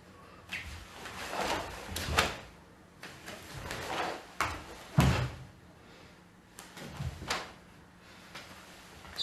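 Karate kata performed barefoot on a wooden floor: swishes and snaps of the cotton gi with each technique, and sharp slaps and stamps of bare feet on the floorboards, the heaviest about five seconds in.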